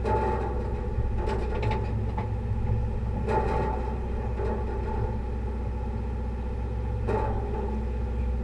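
Fishing boat's engine running with a steady low drone, a few short indistinct sounds passing over it.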